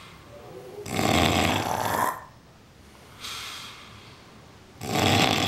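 A sleeping man snoring heavily: two long, loud snores about four seconds apart, with a softer breath between them.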